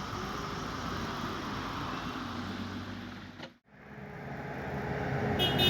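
Road vehicle engine and road noise, cut off suddenly about halfway through, then coming back louder with a steady engine hum. Near the end there is a brief high-pitched horn toot.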